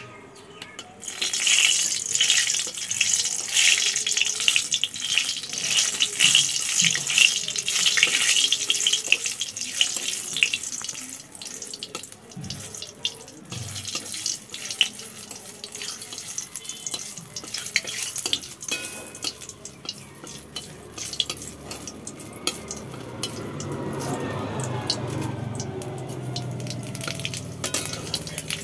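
Panch phoron and cumin seeds sizzling in hot oil in a metal kadai, the hiss starting loud about a second in and easing off after about ten seconds, with many small clicks and a metal spatula stirring against the pan.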